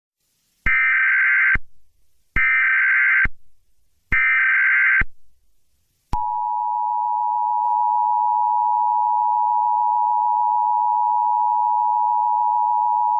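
Emergency Alert System tones: three short bursts of warbling digital data tones, the coded header that starts an alert, each just under a second long. About six seconds in, the steady two-tone attention signal begins and holds, announcing that an alert message follows.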